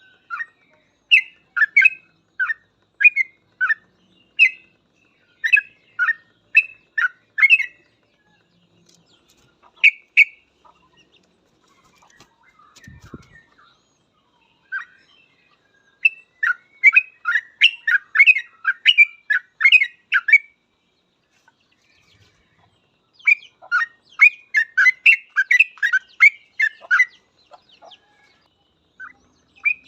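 Yellow-vented bulbul (trucukan) singing in quick runs of short, bubbling whistled notes. The song comes in bursts with pauses between them.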